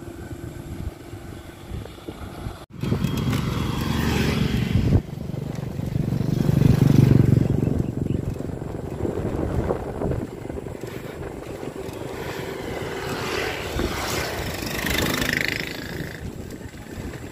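Wind rushing over the microphone and road noise of a gravel bike riding along a paved road. It breaks off briefly about three seconds in and swells loudest about seven seconds in.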